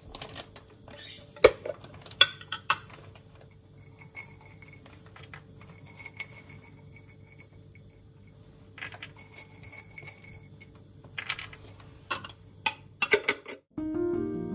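Dishes and cutlery clinking and knocking: scattered sharp clinks with quieter stretches between, over a faint steady hum. Near the end the clatter cuts off and gentle plucked-string music starts.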